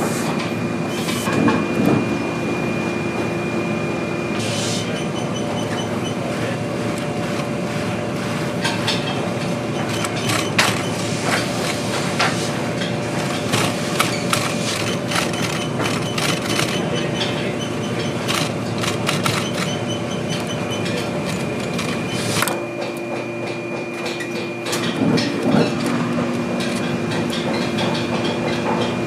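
Industrial post-bed sewing machine stitching a new leather lower onto an old boot upper, running steadily with a rapid run of needle clicks.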